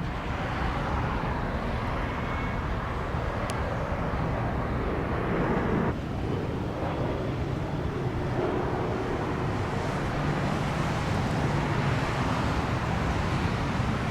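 Steady road traffic noise: a continuous low rumble of car engines and tyres, with a sudden shift in the sound about six seconds in.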